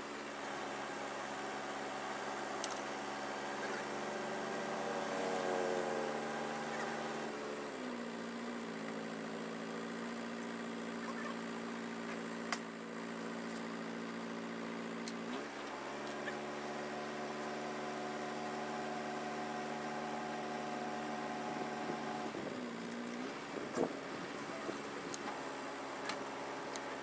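Crane truck's engine running steadily while its crane works, the engine note shifting in clear steps about eight seconds in, again around fifteen seconds and again near twenty-three seconds. A few sharp knocks are heard over it.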